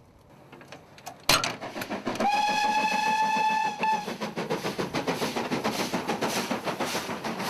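A metal cabinet door shuts with a sharp bang. Then a BR Standard Class 4MT 2-6-4 tank steam locomotive sounds its whistle in one steady blast of about two seconds and passes working hard, its exhaust beating in quick, even chuffs.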